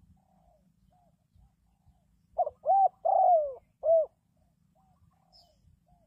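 Spotted dove calling: four loud cooing notes in a quick run lasting about two seconds, the third the longest and falling in pitch at its end. Fainter short coos sound before and after.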